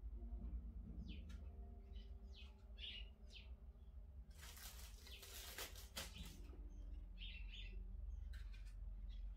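Faint bird chirps, short and high, scattered every second or so over a low steady hum. About four seconds in, a thin plastic bag crinkles for a couple of seconds as cut strawberry pieces go into it.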